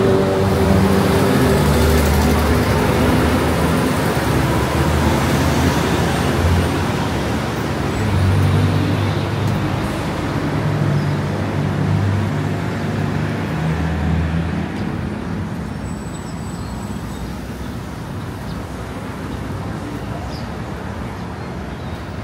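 A city bus passes close by with its engine running, then steady road traffic follows, with engines swelling and fading again. The traffic grows quieter over the last few seconds.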